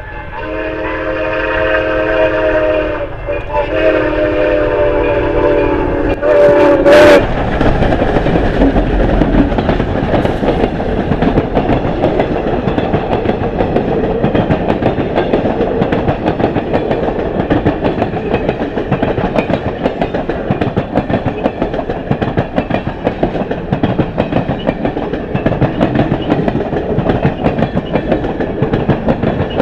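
Grand Canyon Railway 4960, a 2-8-2 Mikado steam locomotive, blowing its chime whistle in two long blasts and a short one. About seven seconds in there is a sudden loud burst, and the train then runs close by with a dense, steady clatter of wheels over the rail joints.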